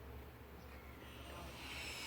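Faint steady low hum with a light hiss, and no distinct event.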